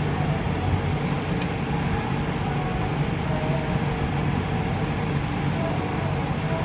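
Steady low hum with a hiss over it, unchanging throughout: constant room or machine background noise.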